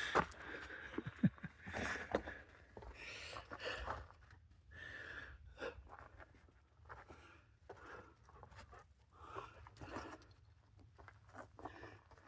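Footsteps of a hiker walking on a lava-field trail, about two steps a second.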